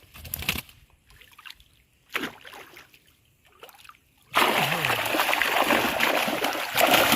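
A few faint knocks and rustles, then loud splashing and pouring water that starts suddenly about four seconds in and keeps on: a keep net full of freshly caught fish being handled in the water.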